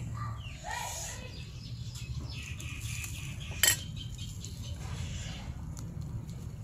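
A spoon clinking against the dipping-sauce bowl as chilli sauce is spooned out, with one sharp clink about three and a half seconds in, over a steady low hum.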